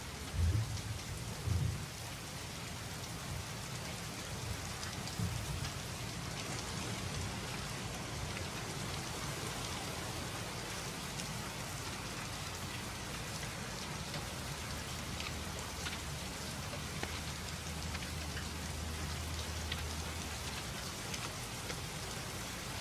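Heavy rain falling steadily, with a low steady hum beneath it that fades out near the end. Two low thuds come in the first two seconds.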